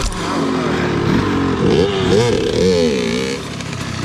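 Dirt bike engine revving up and down over and over as the bike is ridden, with wind noise on the microphone. The engine pitch rises and falls quickly through the middle, then the sound eases off a little near the end.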